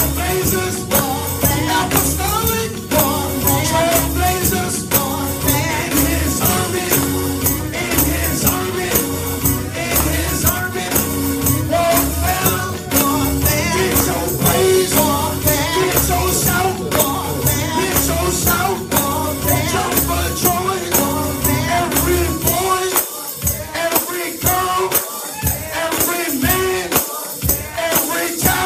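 Live gospel praise music with singing and a rhythmically shaken tambourine over a steady beat and bass. A little past two-thirds of the way through, the bass drops out, leaving the tambourine and voices.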